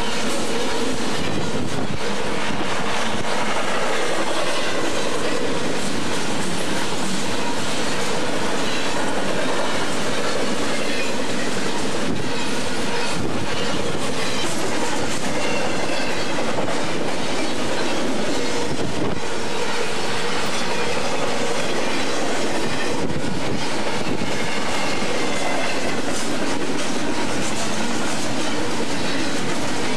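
Double-stack container train rolling past close by: steady loud rumble and clatter of steel wheels on the rails, with sharp knocks at irregular intervals and faint high wheel squeals now and then.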